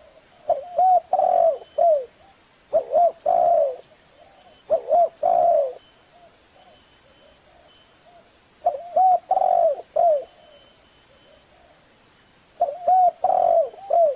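Spotted dove cooing: five phrases, each a few short coos around one longer coo that slides down in pitch, coming every two to four seconds.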